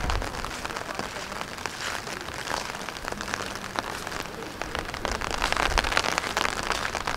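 Rain pattering: a dense, steady patter of drops that gets louder about five seconds in.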